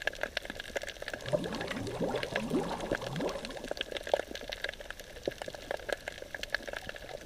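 Air bubbles rising underwater, heard as a run of quick rising bloops from about a second and a half to three seconds in, over scattered sharp crackling clicks.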